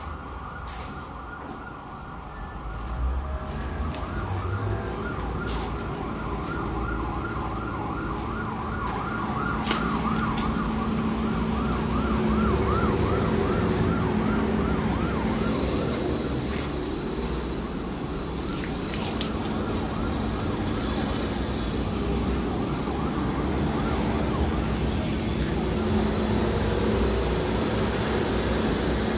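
Emergency vehicle siren in a fast yelp, rising and falling several times a second, over steady road-traffic rumble. The siren fades out about halfway through, leaving the traffic noise.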